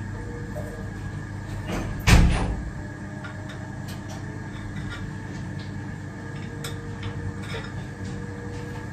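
A kitchen cabinet shut with a loud thump about two seconds in, with a short scrape just before it. Light clinks of plates and cutlery follow over a steady low hum.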